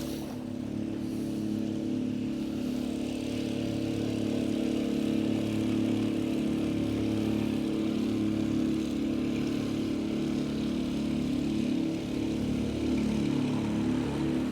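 A motorboat's engine running steadily as the boat passes on the river, its pitch drifting slightly.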